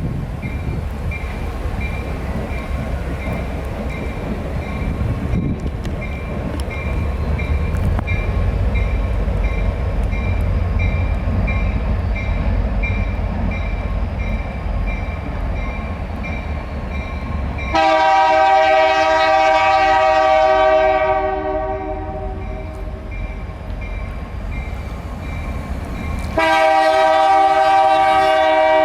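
A CN train rumbling past at low pitch, then its locomotive air horn sounding two long multi-note blasts, the first about two-thirds of the way through and the second near the end. A faint high ding repeats steadily during the rumble.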